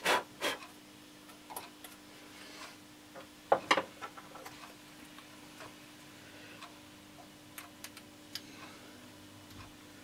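Scattered clicks and light knocks of small parts and tools being handled by hand: two sharp knocks at the start, two more about three and a half seconds in, then lighter ticks, over a faint steady hum.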